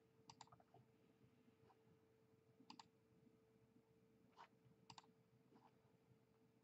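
Faint computer mouse clicks, a few of them in quick pairs, against near silence with a faint steady hum.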